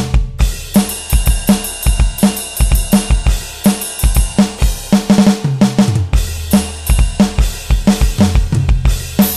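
Sampled acoustic drum kit from the Real Drum phone app playing a steady beat: bass drum, snare, hi-hat and cymbals.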